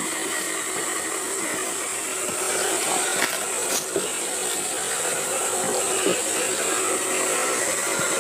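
Electric motor and gear drive of a scale RC Land Rover Discovery crawler running steadily as it climbs over rock, under a steady hiss. There are a few sharp clicks about three to four seconds in.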